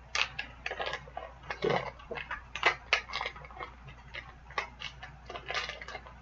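Toy packaging being handled and turned over in the hands: a run of irregular crackles and clicks.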